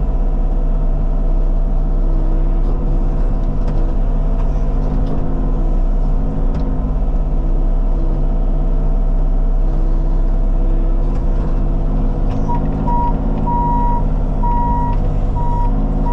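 Diesel engine of a Bobcat compact tracked machine running steadily at working speed. About three-quarters of the way in, its backup alarm starts beeping repeatedly as the machine reverses.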